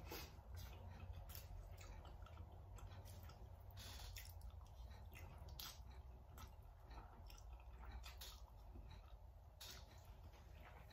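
Quiet eating sounds: a person chewing and slurping instant noodles eaten with chopsticks, with irregular wet, sticky mouth clicks over a low steady hum.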